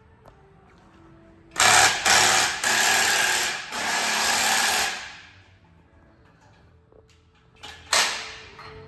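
A power tool run in several bursts of a second or so, starting about a second and a half in and stopping around five seconds, with one more short burst near the end, as the lower exhaust downpipes are being fitted to the car.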